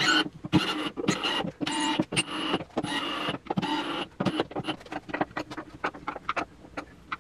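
Cordless drill run in a string of short trigger bursts, driving the clockwise screw that holds the pulley onto the Shelix cutter head's shaft. The bursts grow shorter and choppier after about four seconds.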